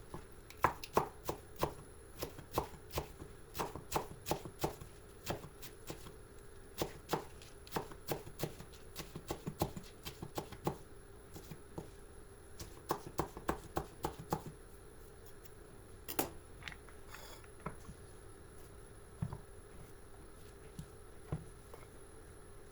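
Knife chopping food on a cutting board, in runs of quick, even strokes, about two to three a second, with short breaks. The chopping stops about two-thirds of the way through, leaving a few scattered knocks.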